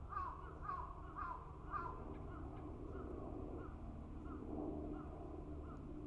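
A crow cawing in a quick series: about four loud caws in the first two seconds, then fainter ones roughly twice a second, over a low steady background rumble.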